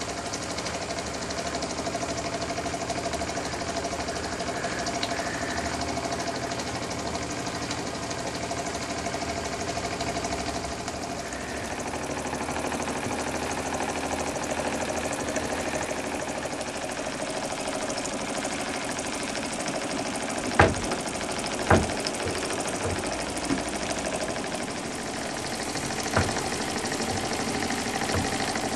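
Cyldon 13-2 toy steam engine with a semi-rotative valve running steadily on live steam, a continuous fast mechanical running sound, now running smoothly. A few sharp knocks come about two-thirds of the way through.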